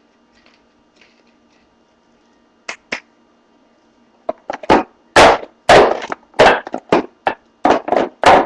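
Pepper mill grinding pepper: two light clicks, then from about four seconds in a run of short, loud grinding strokes, roughly two a second.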